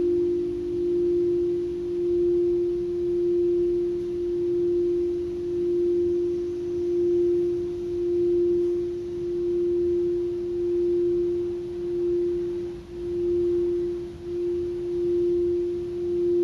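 Singing bowl holding one sustained, pure ringing tone that swells and fades in a slow, even pulse about once every second and a bit.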